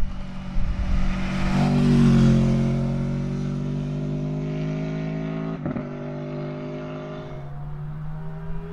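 V4 naked sports motorcycle riding past under acceleration. Its engine note builds to its loudest about two seconds in, breaks briefly a little before six seconds, then carries on and fades as the bike pulls away.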